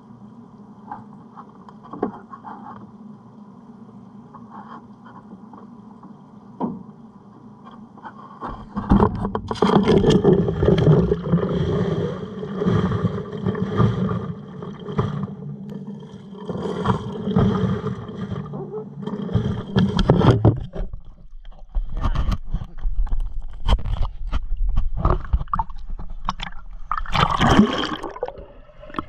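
Water splashing and sloshing close to the microphone, with knocks and scrapes, beginning about a third of the way in after a steady low hum. The water sounds thin out into scattered knocks, with one loud burst near the end.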